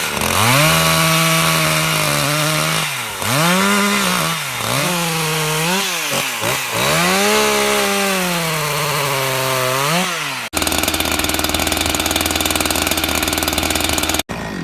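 Two-stroke chainsaw engine revving up and down several times, its pitch climbing, holding and dropping. About ten seconds in, the sound cuts suddenly to a steady, rapidly pulsing rasp, which stops near the end.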